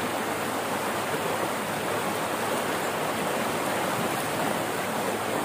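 Steady rush of floodwater pouring out of a culvert outflow and churning into a swollen, muddy creek.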